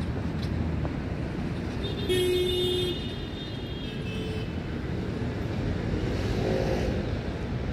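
City street traffic noise: a steady low rumble of vehicles, with a brief pitched tone about two seconds in that is the loudest moment.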